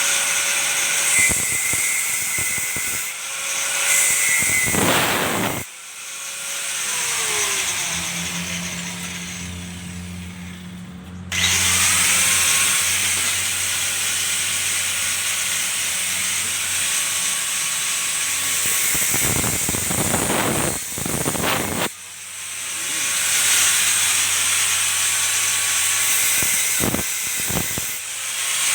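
Handheld electric power tool running in several long stretches, cutting off sharply a few times with its motor winding down in pitch after each stop.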